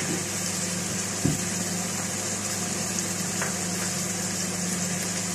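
Chicken pieces sizzling in hot oil and garlic in a pot, a steady hiss over a steady low hum, with a single dull thump about a second in.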